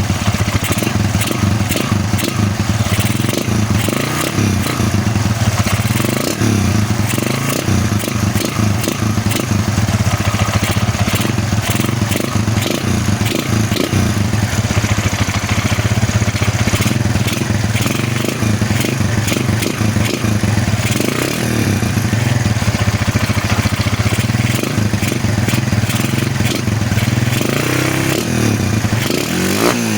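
Motorcycle engine fitted with a reground (grind) camshaft, running steadily with its exhaust loud, revved briefly near the end.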